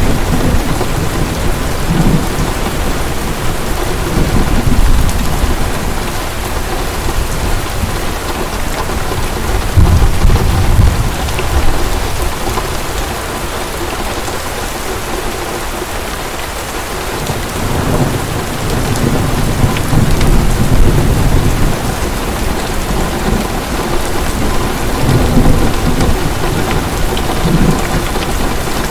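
Heavy rain falling steadily, with thunder rumbling low and repeatedly, swelling and fading, and a lull in the thunder about halfway through.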